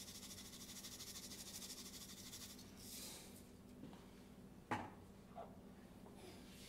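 Faint, fine crackling hiss of pink Himalayan salt coming out of a bottle over a steel bowl of ground beef, then a shorter burst of the same, and a single sharp knock about three-quarters of the way through.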